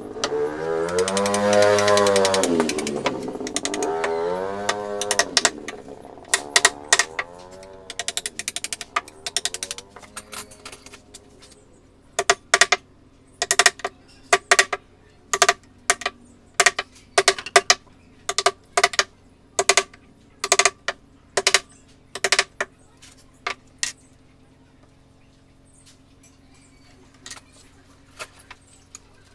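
Wood-carving chisel struck with a mallet, sharp taps at about one a second, sometimes in quick pairs, stopping a few seconds before the end. At the start a loud pitched sound rises and falls for about four seconds.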